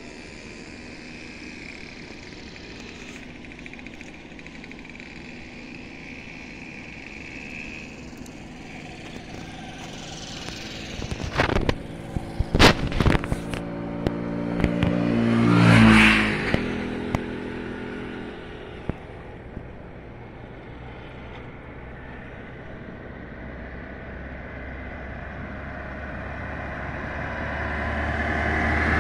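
A motor vehicle passes close by about halfway through: its engine grows louder and then falls in pitch as it goes away, just after a few sharp clicks. Over a steady low hum, another vehicle approaches near the end.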